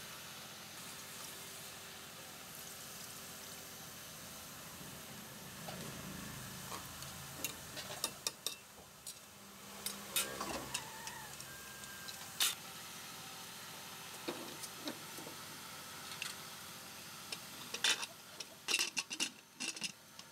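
Beef curry with potatoes simmering in an open aluminium pressure cooker, a steady soft bubbling hiss. Scattered metal clicks and clinks join it from about a third of the way in, and a burst of clattering near the end as the cooker's lid is fitted back on.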